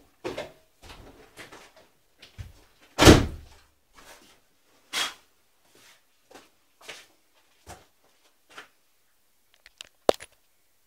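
Mopar 440 cubic-inch big-block V8 backfiring through its carburetor as it tries to start, a string of separate pops and whooshes instead of a steady run. The loudest bang comes about three seconds in, and the pops weaken and spread out later on. A sharp click comes near the end. The uploader puts the backfiring down to wrong ignition timing.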